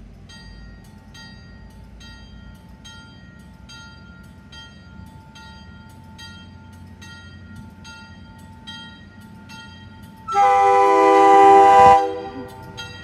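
MBTA commuter rail train approaching with its cab car leading, a bell striking about twice a second over the low rumble of the train. Near the end the horn gives one long chord blast of nearly two seconds.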